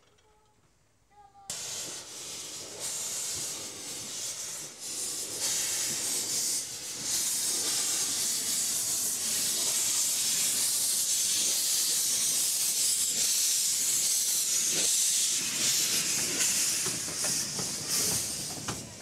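Steam hissing from River Mite, a 15-inch gauge 2-8-2 steam locomotive, as it gets ready to depart. The hiss starts suddenly about a second and a half in, builds over a few seconds, then holds loud and steady.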